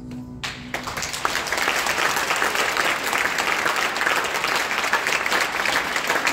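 A held duduk note ends within the first second, and audience applause breaks out and quickly builds to steady, loud clapping.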